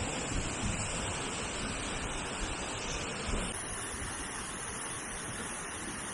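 Flooded waterfall: a steady, loud rush of high water pouring over the falls, with wind buffeting the microphone. The rush changes character slightly a little past halfway.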